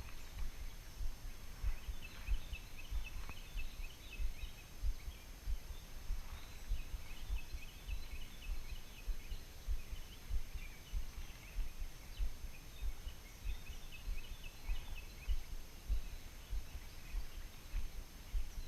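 A flock of young birds chattering in quick, high twittering bursts, on and off throughout, over irregular low rumbling thumps on the microphone.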